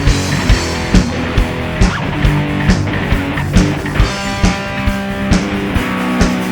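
Rock music with guitar over a steady drum beat, about two beats a second.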